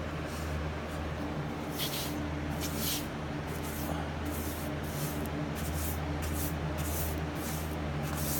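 A paintbrush swishing primer onto old wood: a string of short, irregular brush strokes, about a dozen, over a steady low hum.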